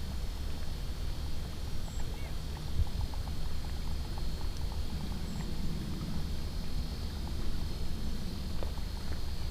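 Low, steady wind rumble on the microphone, with faint scattered ticks and crunches over it.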